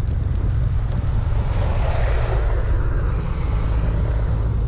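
Motorcycle on the move: a steady low rumble of engine and wind buffeting the microphone, with a brief swell of rushing noise about two seconds in.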